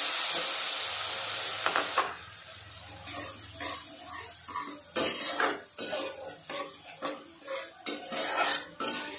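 Hot oil sizzling loudly in a kadai as turmeric fries, dropping off sharply about two seconds in. A metal spatula then scrapes and stirs the ground masala paste around the pan in a run of short, uneven strokes.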